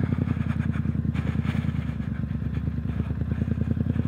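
2019 Triumph Street Scrambler's 900 cc parallel-twin engine running through an aftermarket Zard slip-on exhaust. It pulls at a steady low speed with an even beat, neither revving up nor dropping off.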